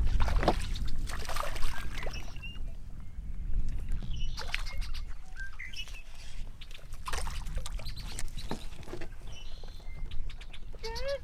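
Wind buffeting the microphone while a hooked bass splashes and thrashes at the water's surface beside the boat, with scattered sharp water splashes and birds chirping in the background.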